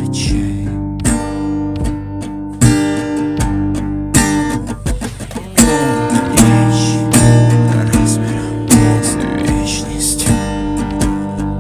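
Music: an instrumental passage of a rock song, led by strummed acoustic guitar chords over sustained bass notes.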